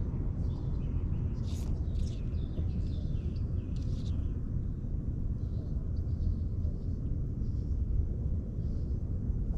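Wind rumbling on the microphone, with a run of short, high bird chirps in the first four seconds and a few fainter ones later.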